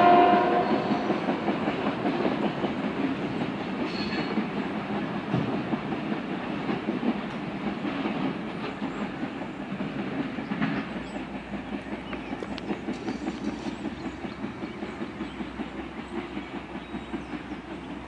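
Freight train of covered hopper cars rolling away, a steady rumble of wheels on rail that fades throughout, with regular clicks as the wheels cross rail joints. A train horn's chord cuts off within the first half-second.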